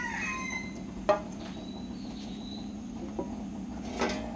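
A metal ladle clinks sharply against a plate about a second in and again against the frying pan near the end, over a steady low hum. The tail of a rooster's crow dies away at the start.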